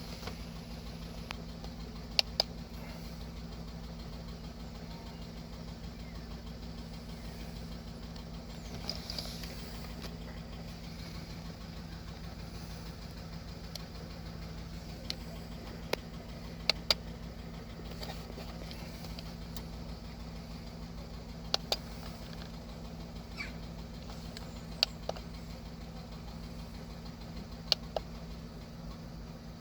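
VW Polo 1.2 three-cylinder petrol engine idling steadily with a misfire on cylinder one, with a sharp click now and then.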